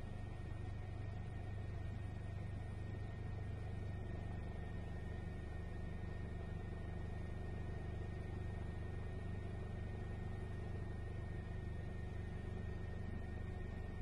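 Steady low rumble of a helicopter in flight, heard from inside the cabin, with a thin steady high whine above it.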